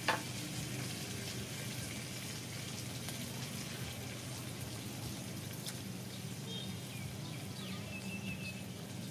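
Steady low outdoor hum with a sharp click just after the start and faint scattered clicks of chopsticks stirring in a ceramic bowl. A few short, faint bird chirps come in the second half.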